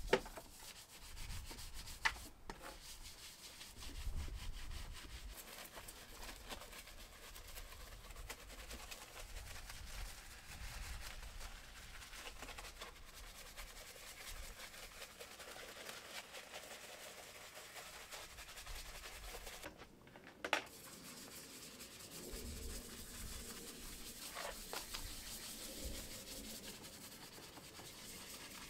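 Detailing brushes scrubbing degreaser foam over an engine bay's plastic covers and hoses: a steady scratchy rubbing, with a few sharp knocks, once about two seconds in and once about two-thirds of the way through.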